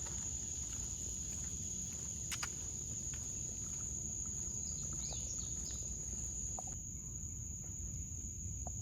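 Insects trilling steadily on one unbroken high note, over a low rumble, with a sharp click a little over two seconds in and a few faint chirps about five seconds in.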